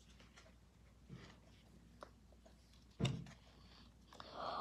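Faint rustling and light clicks of trading cards being handled, with one sharper knock about three seconds in and a soft rushing sound near the end.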